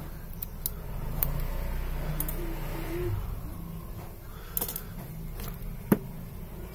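Small metallic clicks and taps of steel tweezers against a smartphone's metal board shield and frame, scattered and irregular, the sharpest one near the end. A steady low hum runs underneath.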